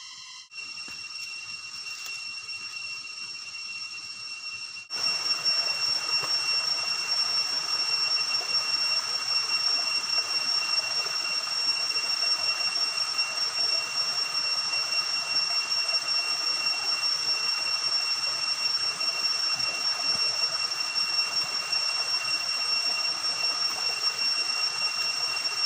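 A quieter outdoor hush at first, then a sudden switch to the steady rush of a shallow stream running over rock, with a steady high-pitched whine running through it.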